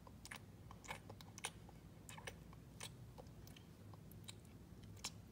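Faint, irregular light clicks of small plastic dollhouse food pieces and dishes being picked up and tapped against a toy table, over a low room hum.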